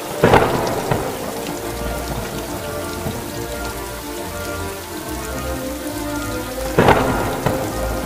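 Steady rain, with two brief loud cracks of thunder, one just after the start and one about seven seconds in.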